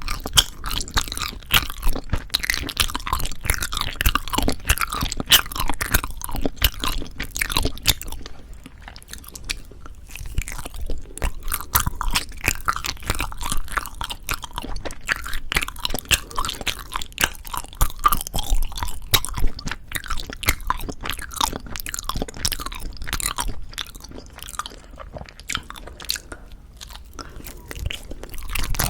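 Close-miked chewing of soft Korean rice cake (tteok): a dense run of small sticky mouth clicks and smacks. It quietens for a few seconds about a third of the way in and again near the end.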